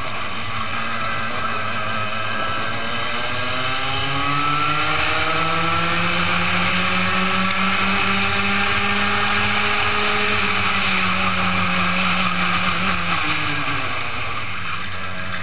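Racing kart's two-stroke engine heard onboard under full throttle. Its pitch climbs steadily for several seconds and then holds at the top. About thirteen seconds in it drops sharply as the driver lifts for a corner, then starts to climb again near the end.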